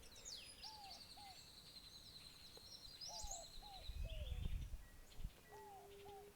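Birds calling: a long, high, even trill lasting about three seconds, and short low whistled notes, mostly in pairs, scattered through. A low rumble comes about four seconds in.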